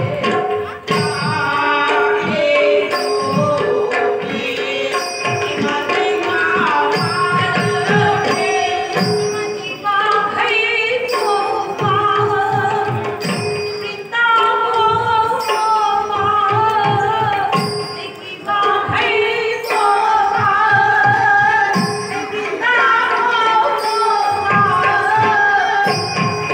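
Live Manipuri Ras Lila devotional music: a woman singing a flowing melody over a steady held drone, with frequent hand-drum strokes and ringing cymbals.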